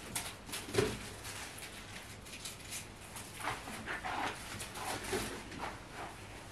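A tabby cat pouncing on and wrestling a feather wand toy on carpet: soft scuffles, rustles and light thumps, the loudest a soft knock about a second in.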